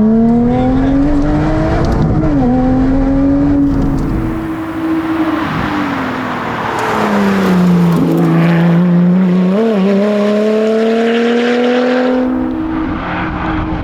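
2016 Lotus Exige S's supercharged V6 engine under hard acceleration. The pitch climbs for the first two seconds, falls away through the middle as the car slows, climbs again with a short blip near ten seconds, and drops near the end.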